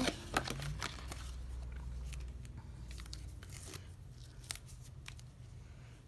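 Paper and plastic photocard packaging crinkling and rustling as it is handled and opened by hand, with a few sharp clicks and taps.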